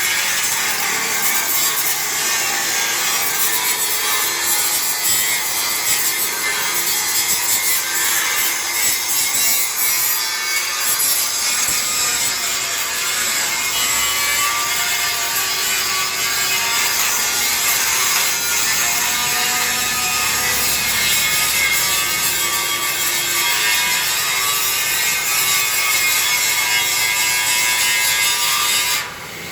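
Angle grinder grinding down a weld on a steel pickup body: a continuous harsh grinding hiss, with the motor's pitch wavering as the disc is pressed into the metal. It drops away briefly just before the end.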